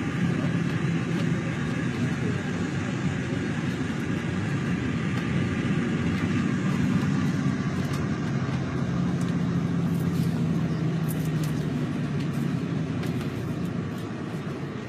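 Intercity coach bus running, heard from inside the passenger cabin: a steady low engine drone with road noise, easing off a little near the end.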